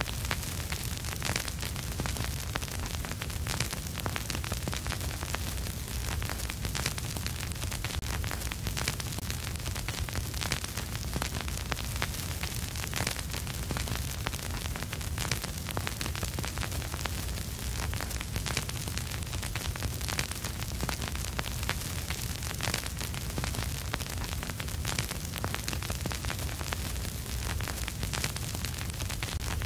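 Vinyl record surface noise with no music: a steady hiss and crackle with frequent small pops and clicks, over a low rumble.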